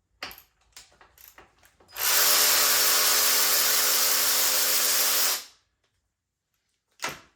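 A power drill runs steadily for about three and a half seconds at a constant speed, then stops. A few light clicks of small metal parts being handled come before it.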